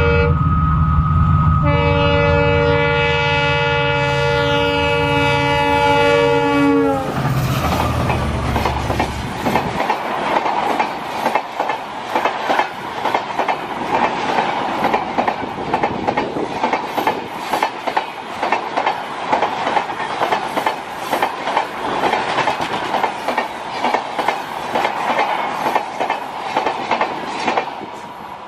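WDP4D diesel locomotive passing at speed: its multi-tone horn blows twice, the second blast held about five seconds and dropping in pitch as the locomotive goes by, over a deep engine rumble that fades about ten seconds in. Then the passenger coaches rush past with a fast, steady clickety-clack of wheels over rail joints.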